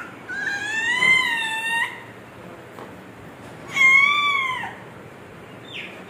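A toddler's high-pitched squeals: two long drawn-out calls, the first about a second and a half long near the start, the second shorter about four seconds in, each rising and then falling in pitch.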